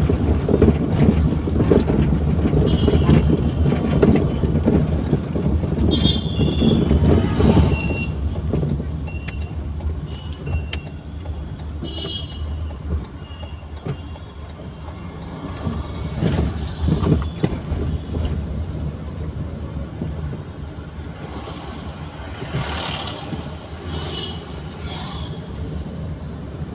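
Road and engine noise heard from inside a moving car in town traffic. It is loudest for the first several seconds and then eases off, with short high-pitched beeps scattered throughout.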